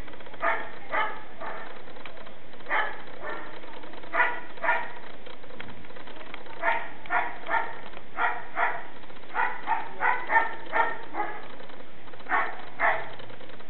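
A dog barking in short yaps, mostly in pairs about half a second apart, repeating every second or two.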